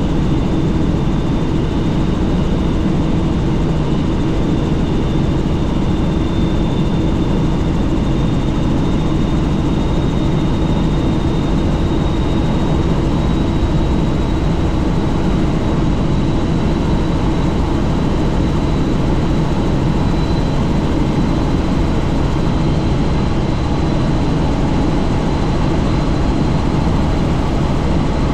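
Helicopter in steady flight heard from the cabin with the doors off: a constant engine and rotor drone mixed with rushing air, with a thin high whine that creeps slightly higher in pitch.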